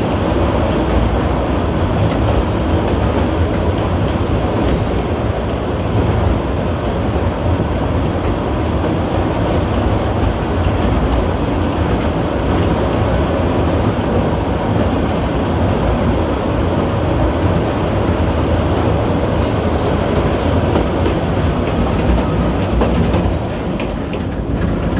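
Steady, loud running noise of a narrow-gauge Kurobe Gorge Railway train, heard from aboard an open-sided Ha-type passenger car: a continuous rumble of wheels on rail.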